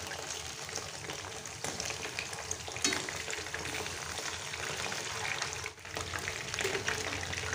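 Chicken wing pieces coated in cornstarch frying in hot oil in a pan, with a steady sizzle and crackle of the oil and a couple of brief clicks.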